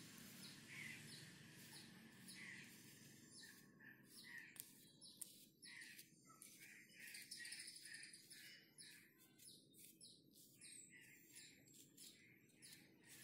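Wire brush scraping repeatedly through the stiff, paint-caked bristles of an old paint brush, combing out dried paint: short, faint scratches about twice a second.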